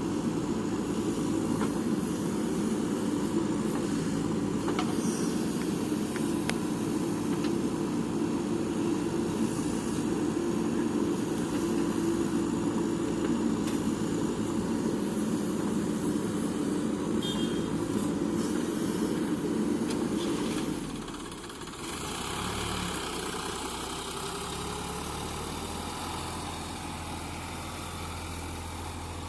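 Diesel engines of a JCB backhoe loader and a tractor running at working speed. About 21 seconds in, the sound drops and gives way to a quieter, lower steady engine hum.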